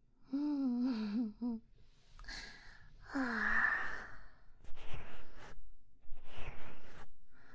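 A woman's wordless vocal sounds. A wavering hummed 'mmm' comes about half a second in, then a long breathy sigh about three seconds in, followed by a few short, soft breathy sounds.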